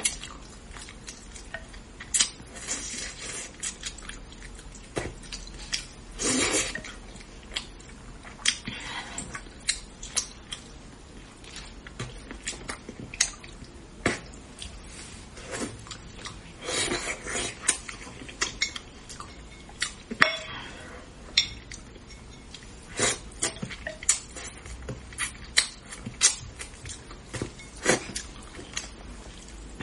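Close-miked eating of spicy braised fish: wet chewing and sucking sounds broken by many sharp clicks of utensils against a dish.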